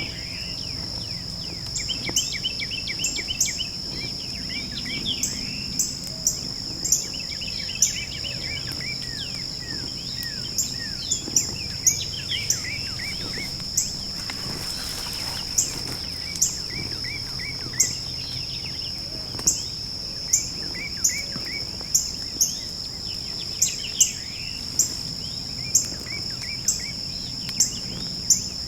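A steady high-pitched insect trill with several songbirds singing short chirping phrases. Sharp ticks come roughly once a second and are the loudest sounds, and there is a brief rush of noise about halfway through.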